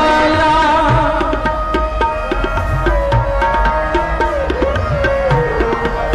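Kirtan music: tabla playing under sustained, steady melodic tones, with no singing.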